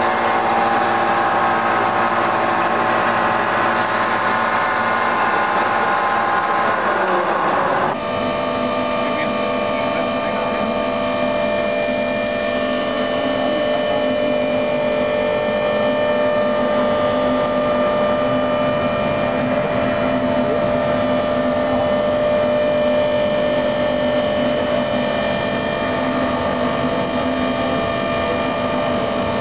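Steady hum of industrial machinery running, many steady tones sounding together. About eight seconds in, the mix of tones changes abruptly and stays steady after that.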